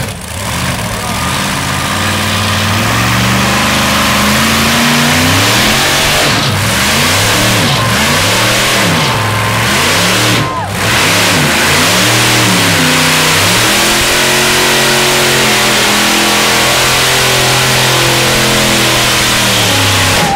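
Engines of two lifted Ford mud trucks, an Explorer and a Ranger, revving hard at full throttle as they pull against each other in a tug of war, with tires spinning. The revs climb over the first few seconds, rise and fall about every second and a half in the middle as the trucks bog and recover, then hold high and steady.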